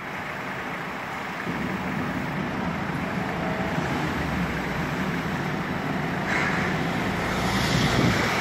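Forklift engine running steadily, getting louder about a second and a half in as the hydraulics turn the rotating clamp attachment back to level; the truck then moves forward.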